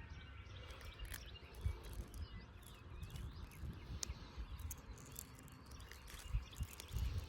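Quiet outdoor ambience: faint bird chirps over an uneven low rumble, with a few light clicks.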